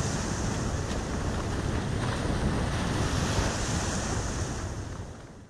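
Small waves breaking and washing up a sandy beach, with wind rumbling on the microphone; the sound fades out near the end.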